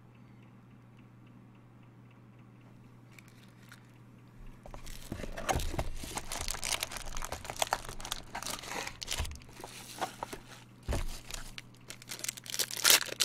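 Foil wrapper of a trading card pack crinkling and being torn open by hand, starting about four seconds in, with sharp crackles loudest near the end. Before that, only a low steady hum.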